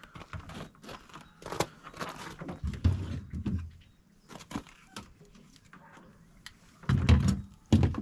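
Scattered clicks, knocks and rustles of hands handling the plastic shelves and bottom drawer of an open refrigerator while an airbag unit is placed inside, with heavier low thumps about three seconds in and again near the end.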